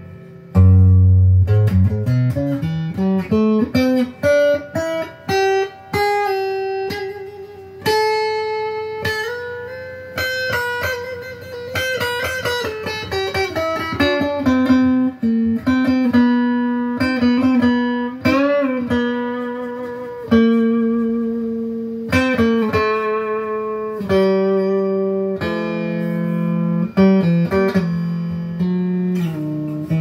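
Squier Debut Series Stratocaster played clean on its neck pickup through a Crate amp with reverb. A run of single notes climbs up from the low strings, followed by ringing held notes and chords, one note wavering with vibrato about eighteen seconds in.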